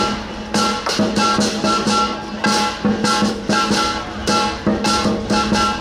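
Lion-dance percussion band playing a steady beat: drum with crashing cymbals and ringing gong strokes, about two to three strikes a second.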